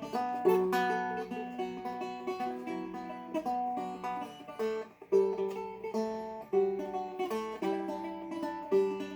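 A Seagull Merlin M4, a four-string dulcimer-style instrument, fingerpicked in a repeating pattern of plucked notes, with low and high strings sounding together. The notes break off briefly about five seconds in.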